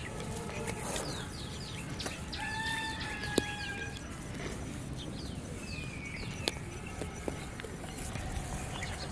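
Birds calling: several short falling chirps and one longer held call about two and a half seconds in, over a steady low rumble. A few sharp clicks are heard.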